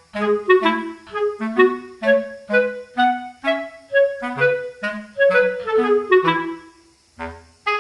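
Background music: a light melody of short, evenly paced notes over a bass line, with a brief break about seven seconds in.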